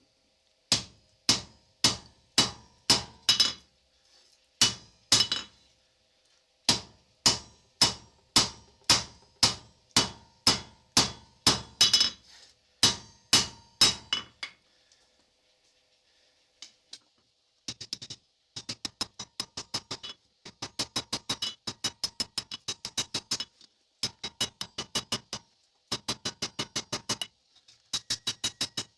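Hammer blows on hot 5160 leaf-spring steel on an anvil, each strike ringing. About two heavy blows a second for the first half, a pause of a few seconds past the middle, then quicker, lighter blows in rapid runs of about five a second.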